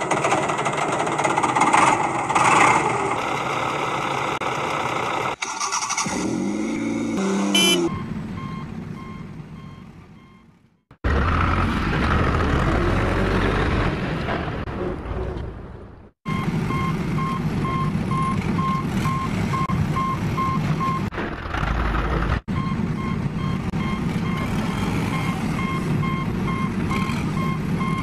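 Motor vehicle engine sounds running, cut off and restarted abruptly several times between clips, with a reversing alarm beeping repeatedly around the middle and through most of the second half.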